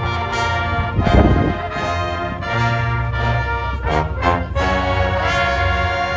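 Marching band playing loud held brass chords with sousaphone bass and drums; a few drum hits stand out, the strongest about a second in.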